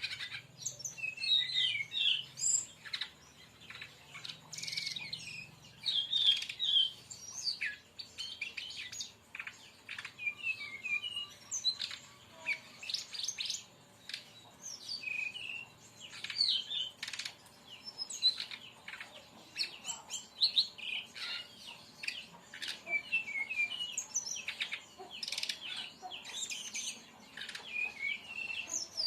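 Brown-chested jungle flycatcher (sikatan rimba dada coklat) singing a fast, unbroken run of short, high-pitched chirps, trills and clicking notes: the rapid-fire 'tembakan' song used as training audio for caged birds.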